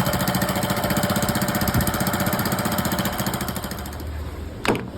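Motorcycle engine running with a rapid, even pulse, dying away about four seconds in, followed by a sharp click near the end.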